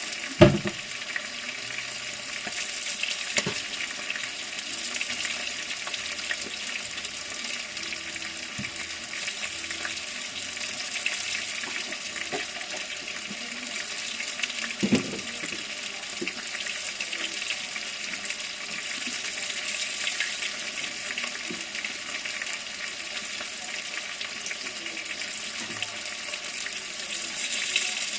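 Steady kitchen hiss with a few faint ticks, broken by a sharp knock just after the start and another about halfway through.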